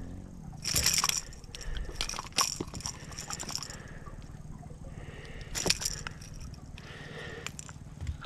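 A hooked queenfish being reeled in to the boat on a spinning rod and popper, with several short noisy bursts a second or two apart over a low steady hum.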